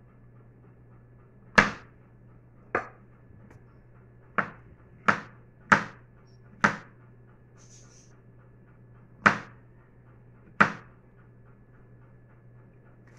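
Large kitchen knife chopping button mushrooms on a plastic cutting board: eight sharp knocks of the blade hitting the board, at uneven intervals, over a faint steady hum.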